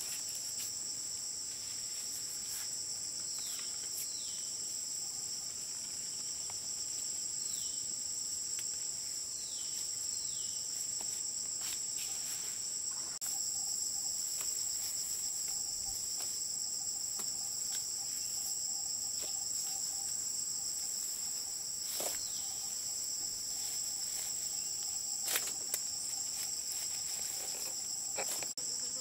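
Forest insects in a steady, high-pitched chorus. A few short falling whistles and a couple of faint clicks come and go over it.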